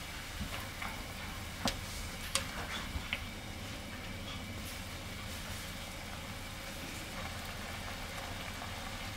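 A pot of kimchi soup at a rolling boil, bubbling over a steady low hum, with a few sharp pops or clicks between about one and a half and three seconds in.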